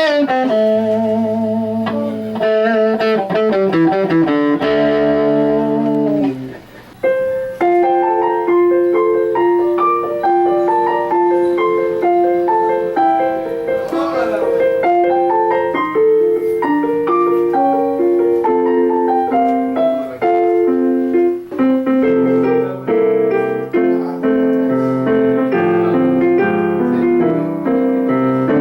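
Music played on a keyboard instrument, piano-like: a melody of separate stepped notes over chords. For the first six seconds or so a different passage with wavering held notes sounds, then breaks off briefly before the keyboard begins.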